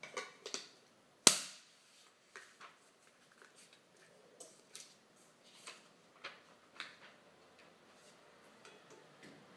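A roll of sealing film being handled at a cup sealing machine: one sharp knock about a second in, then scattered light clicks and taps.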